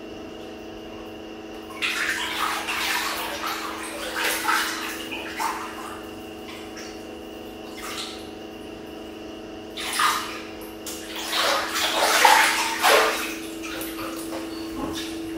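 Bath water splashing and sloshing as hands move through a filled bathtub, in two stretches of a few seconds each, about two seconds in and again about ten seconds in. A steady low hum runs underneath.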